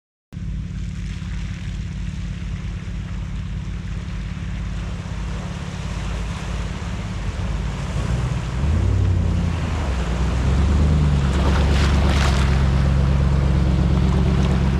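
Off-road vehicle's engine running under wind noise on the microphone. Its note climbs and grows louder about eight seconds in, then holds steady, with a brief rush of noise near the end.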